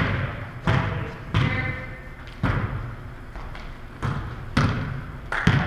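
A volleyball being struck and bouncing off the gym floor: about six sharp smacks at irregular intervals, each echoing in the large hall.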